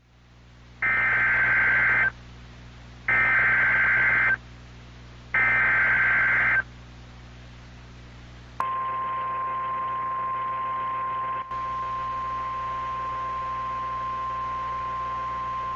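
Emergency Alert System SAME header from NOAA Weather Radio: three identical bursts of warbling data tones, each a little over a second long. About eight and a half seconds in, the long, steady single-pitched Weather Radio warning alarm tone begins. Together they signal the start of a warning broadcast, here a severe thunderstorm warning.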